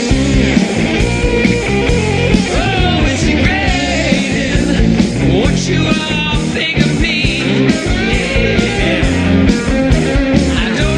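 Studio recording of a rock song: drums, bass guitar and electric guitar playing a steady beat, with a male voice singing.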